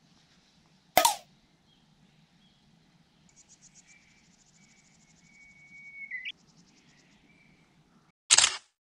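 Insects trilling in fast high pulses over a faint low rumble, with a thin whistling tone that grows louder around the middle. Two sharp knocks stand out, one about a second in and one near the end.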